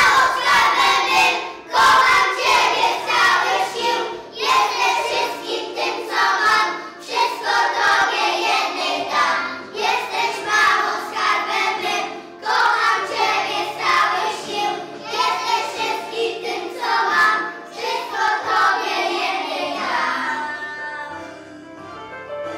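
A group of young children singing together in phrases over backing music. Near the end the singing stops and the music carries on more quietly.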